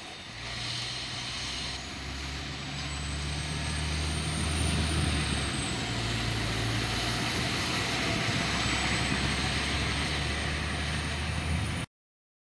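PESA SA135 diesel multiple unit pulling out of the platform and passing close by, its diesel engine running with a steady low hum that grows louder over the first few seconds. The sound cuts off suddenly near the end.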